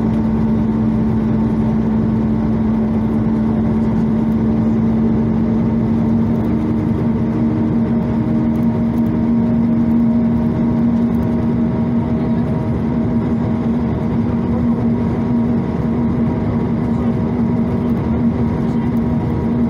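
Karosa LC735 coach's diesel engine running at a steady cruising speed, heard from inside the bus as an even drone under steady road noise.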